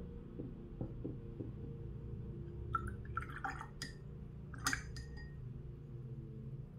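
A watercolour brush working in water and on a ceramic palette: a few light clinks and small water sounds about three to five seconds in, over soft background music.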